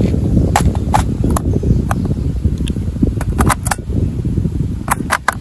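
Wind buffeting the microphone with a steady rumble, over a series of sharp plastic clicks and taps as AA batteries are handled and pressed into a toy's battery compartment, the clicks coming in small clusters, the last a quick run of three or four.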